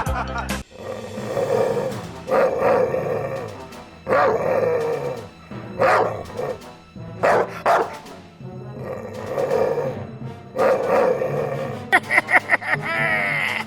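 Background music with short, loud sounds about every one to two seconds, and a quick run of high, rapid notes near the end.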